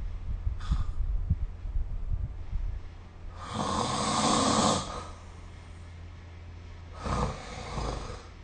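A sleeping person snoring: one loud snore about halfway through and a shorter one near the end, with a low steady hum underneath.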